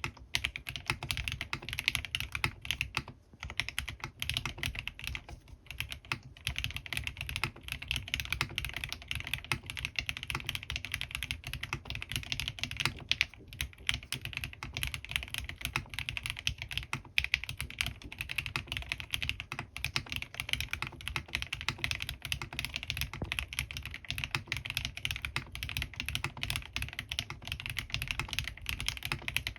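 Continuous fast typing on a Bahm Studio Droplet custom mechanical keyboard with lubed Gateron CJ linear switches and PBT keycaps: a dense stream of keystrokes, with brief pauses about three and six seconds in.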